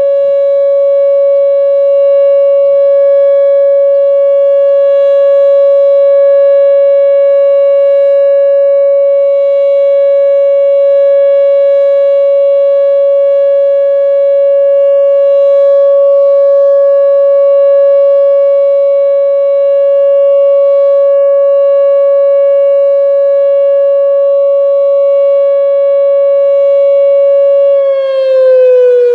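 Whelen OA-4 outdoor warning siren sounding its steady Alert tone during a weekly test: one long, loud, unchanging tone that begins to fall in pitch near the end.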